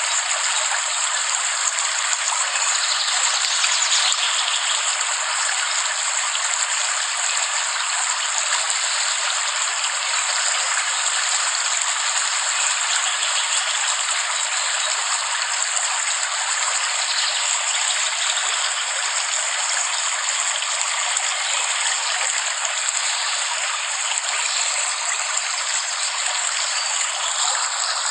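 Steady rainfall: a dense, even hiss that holds the same level throughout, with no distinct drops or thunder standing out.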